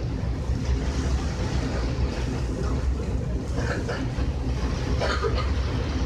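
Ferry engine running with a steady low drone.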